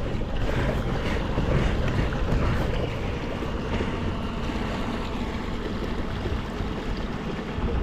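Wind buffeting the microphone over water rushing along the hull of a moving pedal-drive kayak: a steady rumble with a splashing hiss.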